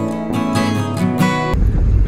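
Background music of strummed acoustic guitar, cut off abruptly about one and a half seconds in. A low rumble of wind buffeting the microphone takes its place.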